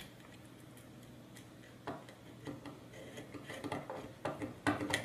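Small clicks and taps of a screwdriver and a small bolt against the plastic and metal parts of a robot kit chassis as the bolt is fitted. It is quiet for the first two seconds, then scattered clicks come, closer together near the end.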